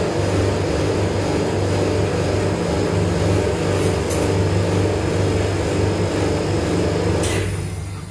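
Steady electrical hum from the ice cream roll machine's refrigeration unit under the frozen steel plate, with a metal spatula scraping ice cream off the plate. Near the end a sharp click, and the hum cuts off.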